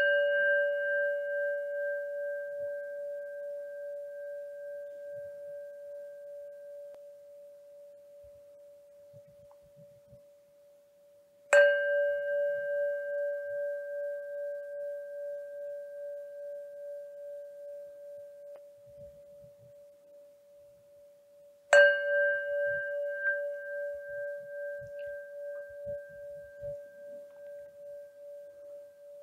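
Buddhist bowl bell (singing bowl) struck three times, about ten seconds apart. Each stroke rings a clear tone with higher overtones that fades slowly with a wavering pulse.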